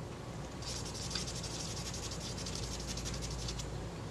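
Rapid back-and-forth rubbing strokes as metal polish is worked over a small camera shutter blade, starting about half a second in and stopping shortly before the end.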